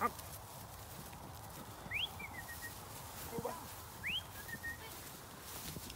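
Two short, rising whistled calls about two seconds apart, each followed by a softer, lower note.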